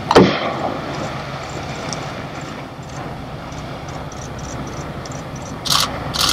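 Humpback whale blowing at the surface: a loud whoosh of breath just after the start, over the steady rumble of a boat engine. A few short hissing bursts come near the end.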